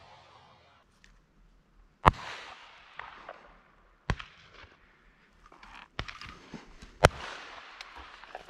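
Shotgun shots: two loud, close blasts about five seconds apart, each with a short echoing tail, and several fainter shots in between.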